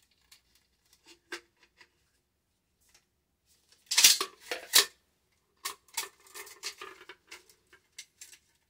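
Metal parts of a Remington 870 pump shotgun being handled and worked back into place during reassembly: scattered small clicks, a loud clatter of metal-on-metal clacks about four seconds in, then a run of lighter clicks and knocks.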